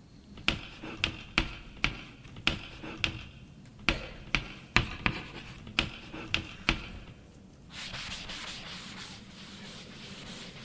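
About a dozen sharp knocks, roughly two a second, then a few seconds of steady rubbing or scraping noise.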